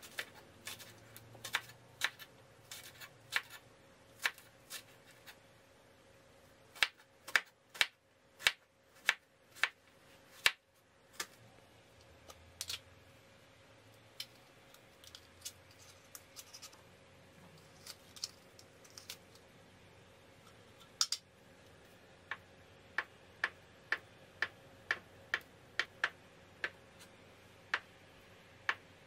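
A kitchen knife working on a tin of Spam: irregular sharp clicks and knocks of the blade and the metal can as the meat is loosened out of it. Near the end it turns into a regular tapping, about two knocks a second, as the knife slices the Spam down onto a wooden cutting board.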